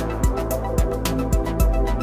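Background music with a steady electronic beat: low kick-drum thumps and crisp high ticks over held notes.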